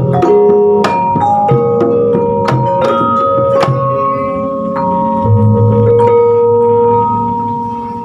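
Javanese gamelan ensemble playing: bronze saron and bonang keys struck with mallets over a kendang drum. The strokes stop, a deep gong note rings in about five seconds in, and the sound dies away near the end, closing the piece.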